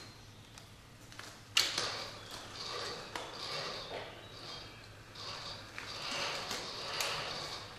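Electric joint motors of a Remotec bomb-disposal robot's manipulator arm whirring in short repeated bursts with a high whine as the gripper is moved, after a sharp click about one and a half seconds in.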